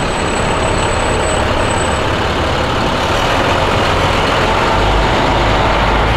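Medium-duty box truck driving past close by: steady engine and road noise, with its deep engine rumble growing louder about five seconds in as it passes.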